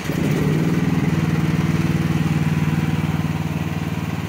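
The micro excavator's small carbureted gasoline engine running steadily just after catching on the key.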